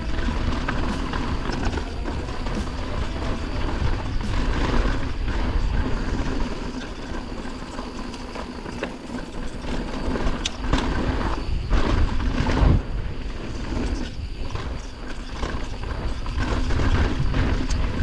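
Mountain bike riding down a dirt trail: tyre noise and rumble over the ground, with frequent knocks and rattles from the bike over bumps.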